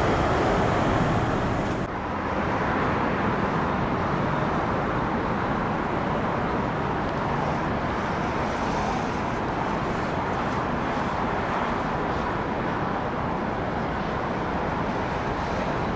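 Steady jet engine noise from an airliner, a continuous even rush with no change in pitch. It dips briefly about two seconds in, and the highest hiss drops away after that.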